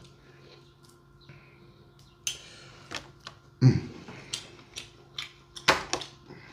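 Sharp clicks and knocks of seafood and tableware being handled, about ten over the last four seconds, two of them loud; a faint steady hum underneath.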